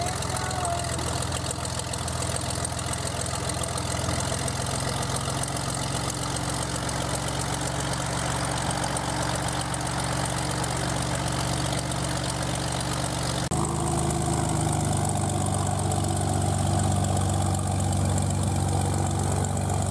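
Single-engine Cessna's piston engine and propeller running steadily at low power, just after starting. The engine note changes abruptly about two-thirds of the way through and grows slightly louder.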